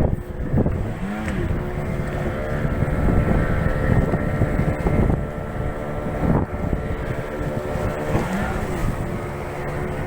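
Motorboat engine running steadily under way, its hum mixed with rushing wind on the microphone and water noise.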